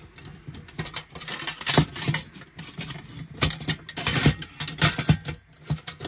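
Stainless steel pot, lid and windshield of a Pathfinder M40 cook kit clinking and knocking together as the kit is fitted back together and the lid pressed down under the folding handle. A series of short, sharp metal knocks, the louder ones about two seconds in and again between three and a half and five seconds in.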